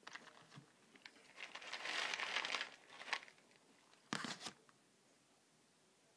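A packet of dry roasted peanuts crinkling and rustling as it is handled, loudest about two seconds in. A short clatter follows a little after four seconds in.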